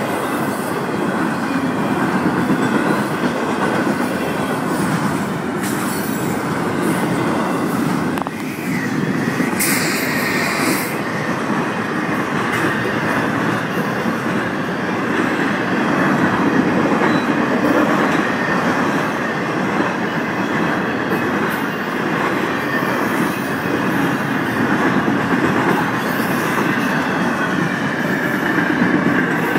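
Florida East Coast Railway intermodal freight cars rolling past at speed: a steady rumble and rattle of steel wheels on rail, with a brief high-pitched screech about ten seconds in.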